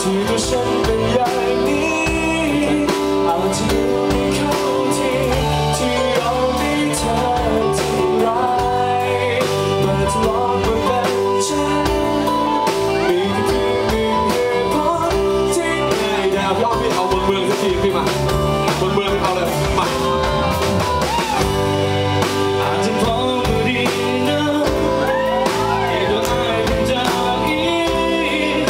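Live acoustic band playing a song, with strummed acoustic guitar, other instruments and singing.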